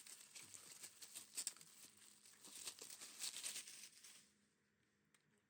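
Packaging being handled: crinkling and rustling with small clicks as items are unwrapped, stopping about four seconds in.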